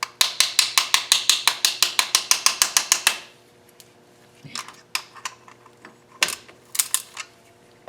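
A ratchet clicking rapidly, about eight clicks a second for three seconds, then a few scattered clicks and knocks of tools on metal.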